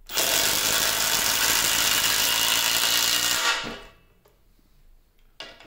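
Hyper Tough 1/4-inch cordless impact driver hammering a lag bolt down into a 4x4 through a pilot hole for about three and a half seconds, then stopping suddenly.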